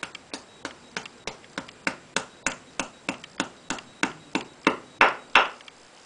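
Claw hammer tapping a plastic anchor into a drilled hole in a concrete block wall, about three light strikes a second with a short ring on each. The last two strikes are the hardest, and the tapping stops about five seconds in, with the anchor driven home.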